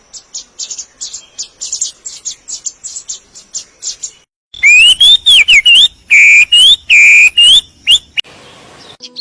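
Songbirds singing: a rapid run of thin, high chirps, then after a short break a series of loud, clear whistled notes that slide up and down, ending in a brief hiss.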